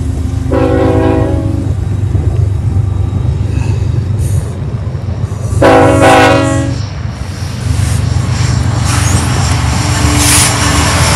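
Lead diesel locomotive of a BNSF manifest freight train, BNSF 3721, sounding its multi-chime air horn in two blasts of about a second each, about half a second in and again about five and a half seconds in, over the steady rumble of the locomotive engines. The engine noise grows louder near the end as the locomotives pass close by.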